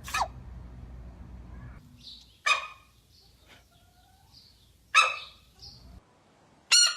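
Animal sneezes: four short, sharp bursts about two seconds apart, the last three loud.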